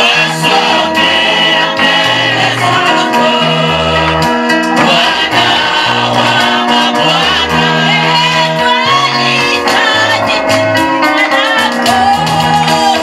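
Gospel praise-and-worship song: voices singing over a band with a bass line moving from note to note and a steady drum beat.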